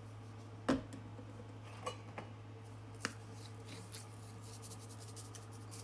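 A few sharp knocks and clinks of kitchen containers and utensils being handled, the loudest about a second in, over a steady low hum.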